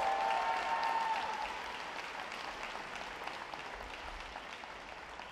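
Audience applauding, loudest at the start and slowly dying away. A long held voice sounds over the clapping for about the first second.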